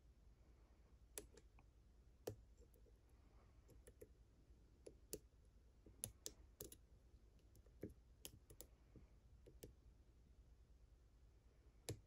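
Faint, irregular clicks of a hook pick and tension wrench working the pin stack inside a Brinks aluminum padlock, a dozen or more small ticks spaced unevenly as the pins are lifted and set.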